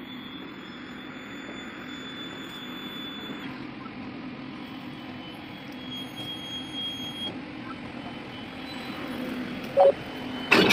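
Indian Railways goods train moving slowly during shunting: a steady rumble with a thin high squeal that comes and goes. Near the end there is a short loud tone, then a heavy loud clank as the couplers close.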